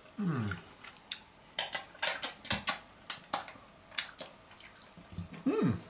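A man's short low hum falling in pitch, then a quick run of sharp clicks and clinks lasting about three seconds, and another short hum rising and falling near the end.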